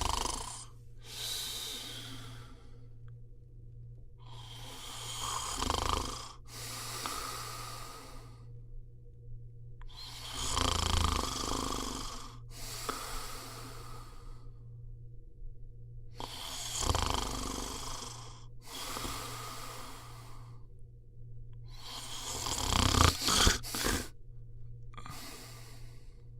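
A sleeper snoring in a slow, regular rhythm: a rasping snore on each inhale followed by a softer breathy exhale, about one breath every five to six seconds, the loudest snore near the end.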